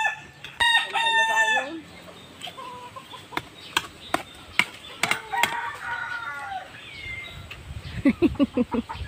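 A rooster crowing at the start, its call held steady for about a second. Scattered sharp clicks follow, and a voice comes in near the end.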